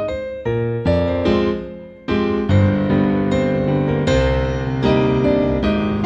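Piano music, with notes and chords struck in a steady, flowing run.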